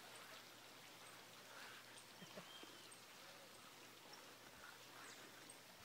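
Near silence: faint outdoor ambience with a few faint, short chirps and ticks.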